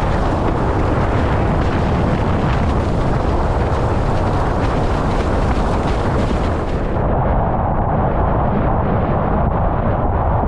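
Strong wind buffeting a rig-mounted action camera's microphone, with water rushing and splashing as a windsurf board planes over chop. The rush turns duller about seven seconds in.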